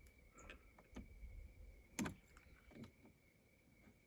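Near silence with a few faint knocks and clicks from handling, the loudest about two seconds in.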